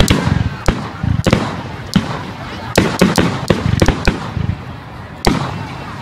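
Aerial fireworks display: a rapid, irregular series of sharp bangs and crackling pops as shells burst overhead. The bangs ease off briefly about four seconds in, then pick up again hard near the end.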